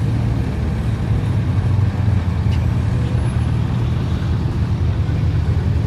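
Car engine running close by at a steady low speed: a deep, even exhaust rumble.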